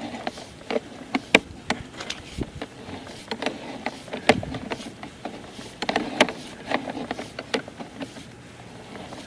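Sewer inspection camera gear being handled: a run of irregular sharp clicks and knocks, several a second, some louder than others.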